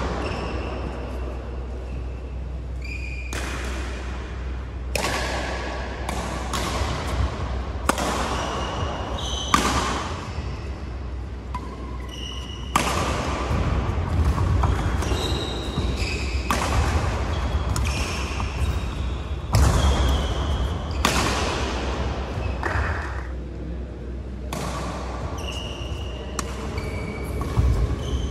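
Badminton rally: sharp racket hits on a shuttlecock every second or two, with short high shoe squeaks on the court mat between them, over a steady low hum.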